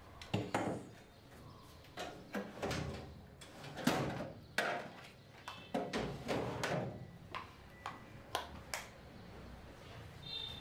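Irregular knocks, clunks and cloth rustling as someone rummages through a room, handling a chair, furniture and clothes.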